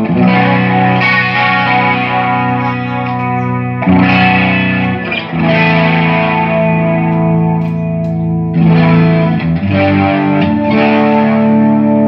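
Electric guitar played through a Line 6 Flextone III XL 2x12 modelling combo amp, several chords struck and left to ring. The volume holds steady, the amp's earlier volume drop-outs cured by cleaning and resoldering its pots.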